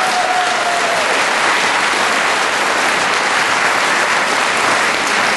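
Audience applauding steadily, dense clapping from a large crowd.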